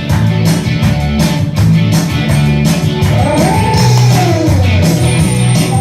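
Loud rock-style music over a PA, with guitar and a steady beat. A long rising-then-falling tone rides over it about three seconds in.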